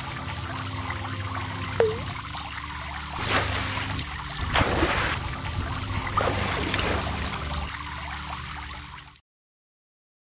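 Water sound effects: steady trickling, running water with a single drip plink about two seconds in and a few louder splashes in the middle, cutting off suddenly near the end.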